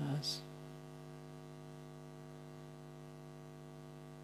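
Steady electrical hum in the recording, a stack of even tones that does not change, after a single short spoken word at the start.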